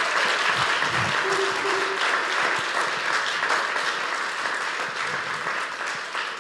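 Church congregation clapping in applause, the clapping slowly easing off toward the end.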